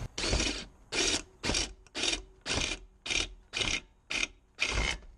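Cordless drill with a step drill bit cutting into a cast aluminium valve cover in short bursts, about two a second, as the trigger is worked on and off.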